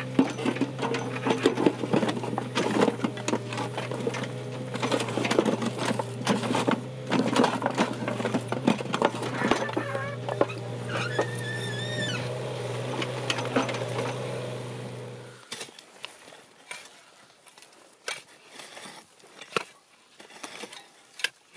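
Mini excavator's diesel engine running steadily while its bucket scrapes and clatters through loose stone rubble, with a brief rising and falling hydraulic whine about ten seconds in. About fifteen seconds in the engine sound cuts off, leaving only faint scrapes and taps of a hand tool in soil.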